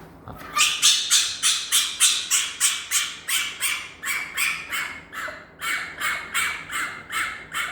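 Fennec fox giving a fast, even string of short, high, rasping calls, about three or four a second, starting about half a second in: the calls of a fox that is very excited and wants attention.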